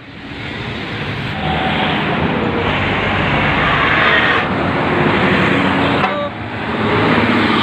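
A bus passing close on the road: engine and tyre noise builds over the first two seconds and stays loud, dips briefly about six seconds in, then swells again.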